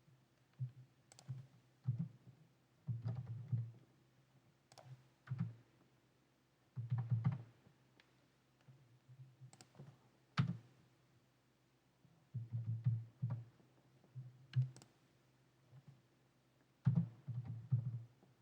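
Typing on a computer keyboard: short irregular bursts of key clicks with pauses between them, and one sharper single click about ten seconds in.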